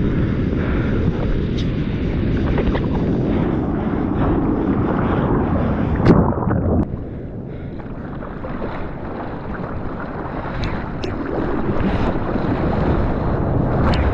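Surf: whitewater rushing and splashing against a GoPro at water level, with wind on the microphone. A loud splash comes about six seconds in, after which the sound goes dull for a couple of seconds.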